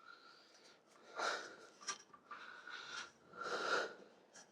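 Rag rubbing over a bare steel bicycle frame as it is wiped down: several uneven swishing strokes, with a sharp click about two seconds in.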